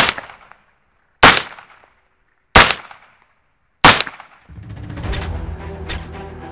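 Four slow, evenly spaced shots, about one and a quarter seconds apart, from a suppressed 5.56 rifle: a Ruger SR556 takedown fitted with an Innovative Arms Interceptor 556 QD suppressor, each shot with a short ringing tail. Music comes in after the last shot.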